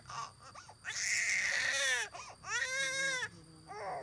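Newborn baby crying in bouts. A raspy wail comes about a second in, then a clearer pitched wail about two and a half seconds in, followed by shorter, quieter cries near the end.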